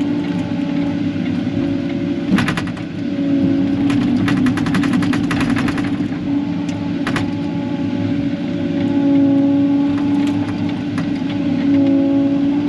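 An engine running steadily, with a sharp click a couple of seconds in, then a quick rattle of clicks for about two seconds and a single click after it.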